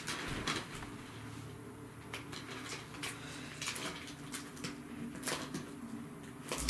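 Scattered light clicks, taps and rustles of small objects being handled, over a steady low hum.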